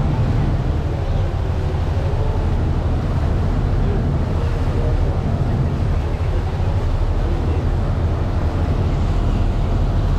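Steady rumble of a Thames river cruise boat under way, its engines and churning stern wake heard together with wind buffeting the microphone.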